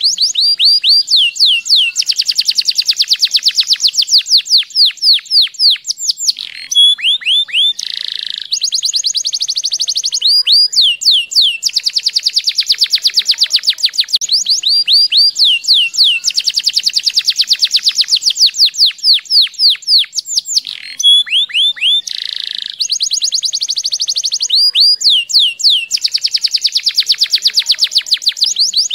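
Domestic canary singing in full song: long, fast trills of rapidly repeated high notes, some phrases made of falling sweeps, with brief pauses between phrases.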